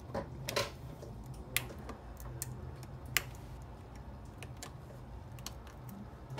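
Scattered small clicks and taps as an iPhone 6's display flex cable connectors are pressed onto its logic board, the sharpest two about a second and a half apart, over a steady low hum.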